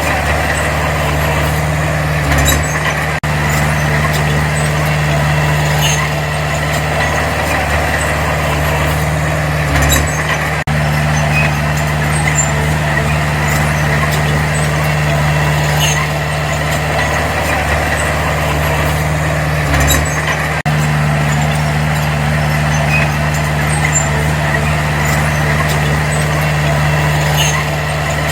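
Diesel engine of heavy earthmoving machinery running steadily under work, with faint scattered metallic clicks.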